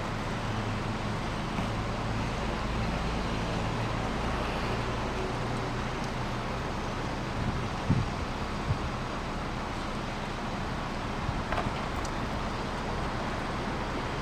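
Steady road traffic noise with a low vehicle engine hum that is strongest over the first few seconds and then fades. Two short knocks come close together about eight seconds in.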